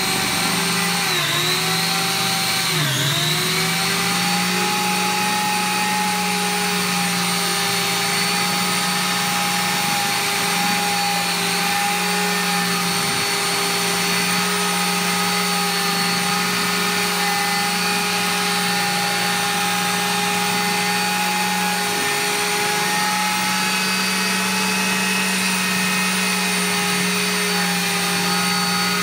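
Bravex electric drywall sander with a 9-inch sanding disc running. Its motor pitch dips twice in the first few seconds, as when the pad is pressed onto the surface, then runs steadily.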